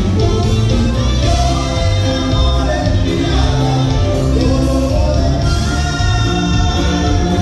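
Live band dance music with singing, loud and continuous.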